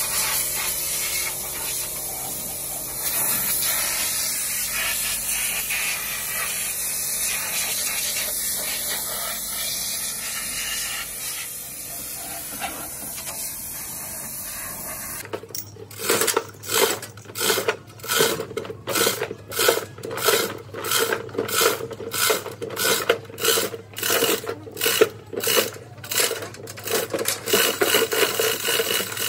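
Compressed-air spray gun hissing steadily as it sprays down a bare engine block. About halfway through it gives way to rhythmic metallic rattling, about one and a half strokes a second, from the chain hoist lifting the block.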